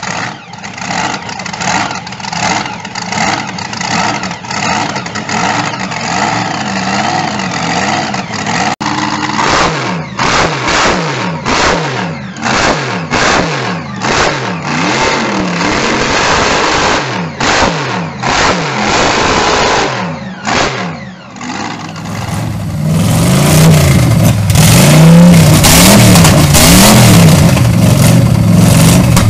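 V8 car engines revving, heard in separate clips. First comes a steady, pulsing rumble, then a run of short, sharp throttle blips. About three quarters of the way through, a louder engine takes over, its revs rising and falling repeatedly.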